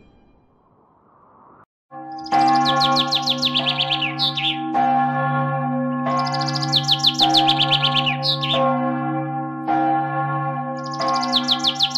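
Church bells ringing, a new stroke about every second and a quarter, each tone ringing on under the next. A small bird sings fast high trills over the bells. The bells start about two seconds in, after a faint rising hiss.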